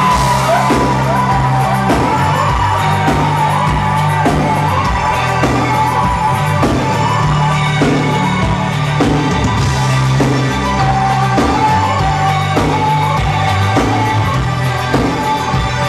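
Live rock band playing loud through the venue PA, with sustained bass notes, a steady drum beat and electric guitar lines.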